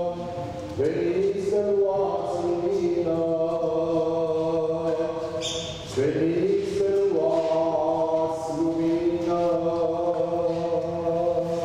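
Orthodox liturgical chant sung by a group of voices in long, held notes, in phrases that break briefly near the start and about six seconds in.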